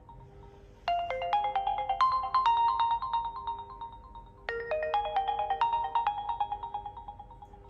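A realme C11 phone ringtone: a melody of quick, short notes with sharp starts that ring and die away. It comes in two phrases, the first about a second in and the second about halfway through.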